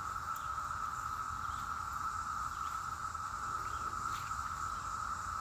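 A heavy chorus of cicadas: one steady, unbroken drone.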